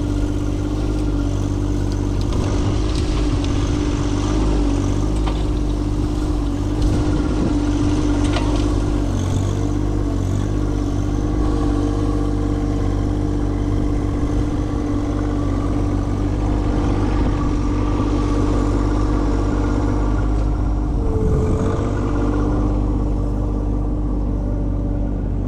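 Tractor engine running at a steady speed under loader work, with a sharp knock about eight seconds in and a brief dip and rise in pitch about twenty-one seconds in.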